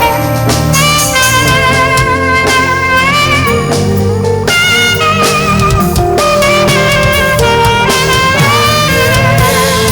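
Saxophone playing a gospel worship melody of held notes with vibrato, over a band with drum kit.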